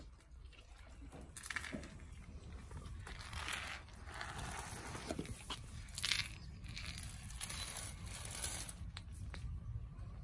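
A dog crunching and gnawing on a bone in irregular bursts.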